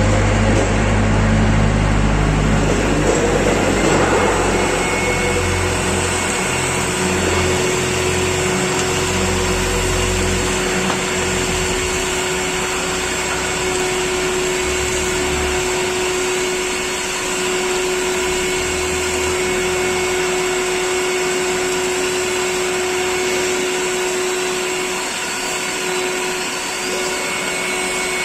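Dustprom PP-220/15.1-1.5 industrial vacuum cleaner running steadily with a constant motor whine, sucking up debris, with an uneven low rumble for the first dozen seconds or so.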